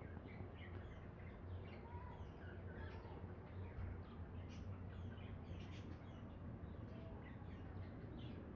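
Small birds chirping faintly: many short, scattered chirps overlapping throughout, over a steady low hum.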